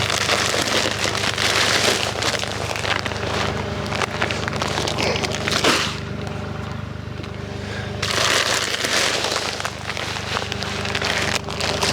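An engine running steadily, under two long spells of dense crackling noise, the second beginning about two-thirds of the way through.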